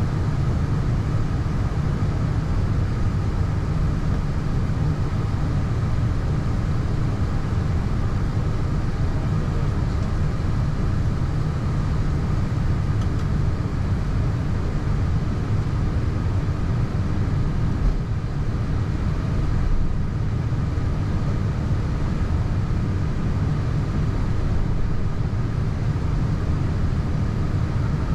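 Airbus A320 taxiing, heard from inside the cockpit: a steady low rumble with a faint steady hum above it.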